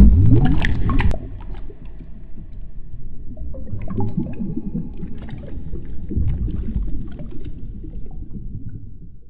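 Slowed-down water sound effect: a loud, deep splash at the start, then low gurgling and bubbling that fades away near the end.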